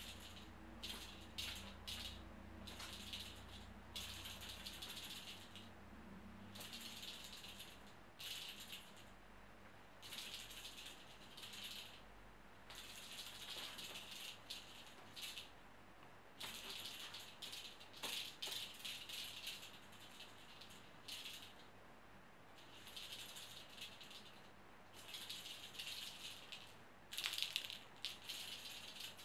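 Cat teaser wand toy rattling as it is shaken, in many short irregular bursts.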